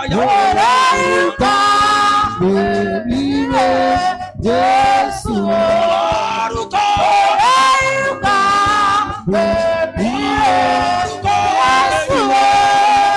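Church worship singing: voices hold long notes and slide between them in short sung phrases.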